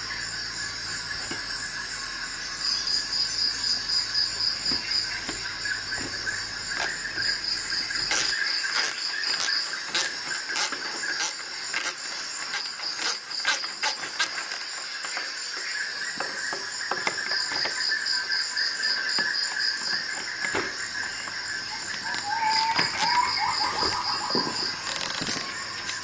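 Crickets chirping in steady pulsed trills, with runs of sharp clicks from about eight seconds in and again near the end.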